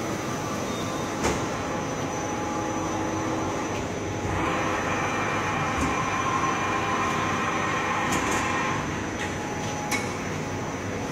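Daewoo Puma 12L-B CNC lathe running with a steady mechanical hum. From about four seconds in, a higher whine joins for some four seconds and then drops away. There are a couple of short clicks.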